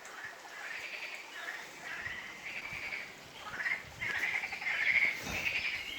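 Frogs calling in a chorus: overlapping runs of short, pulsed croaks, repeated without a break.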